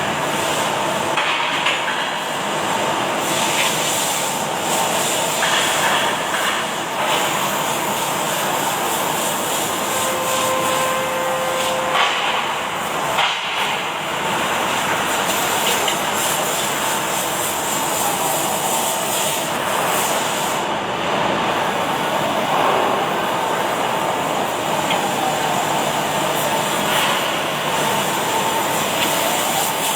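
Steady, loud industrial noise of an automatic welding machine running on the factory floor: a continuous hiss with scattered clicks. Two faint steady tones sound briefly about a third of the way in.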